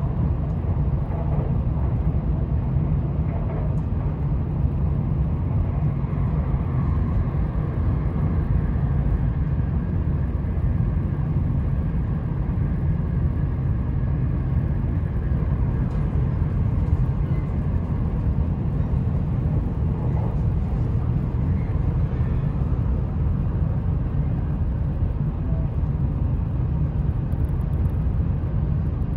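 Steady low rumble of an E4 series double-deck Shinkansen running along the line, heard from inside the upper-deck cabin.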